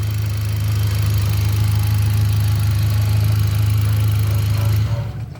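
2018 Hyundai Accent gasoline engine idling steadily, running again after a relay swap cured its crank-but-no-start fault, then switched off about five seconds in, the hum dropping away suddenly.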